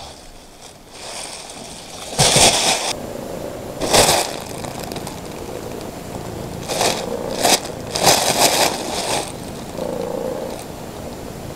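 Thin plastic bag rustling and crinkling in several loud bursts as a cat shifts about inside it.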